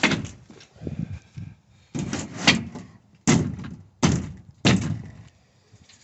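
Plastic window well cover being shifted and knocked against its window well: a series of about six loud thuds and rattles, a second or less apart.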